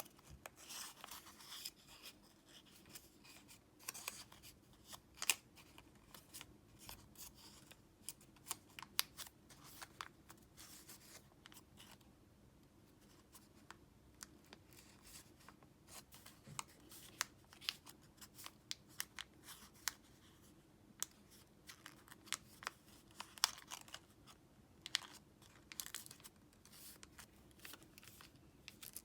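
Origami paper being handled and folded by hand: soft rustling and crinkling with many sharp little clicks as creases are pressed in, quieter for a while in the middle.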